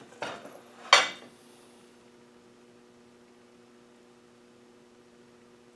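A soft knock, then a sharper light clink about a second in, then a faint steady electrical hum.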